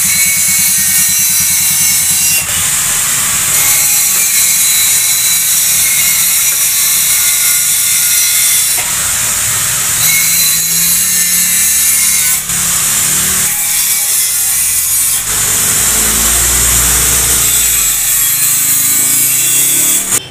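Power tool running continuously with a loud, harsh hissing grind. It cuts off abruptly at the very end.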